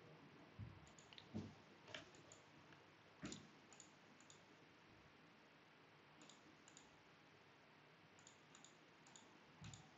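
Near silence with a handful of faint computer mouse clicks, most of them in the first few seconds and one or two more near the end.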